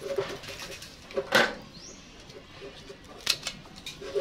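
Hands working an orchid's roots and old potting medium: scattered clicks and rustles, with one louder scrape just over a second in.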